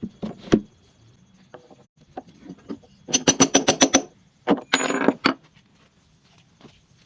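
Sharp knocks and clicks of hand tools and metal hardware on a wooden bed frame while its bolts are fitted. A quick even run of clicks, about nine a second, is followed by a short scraping burst.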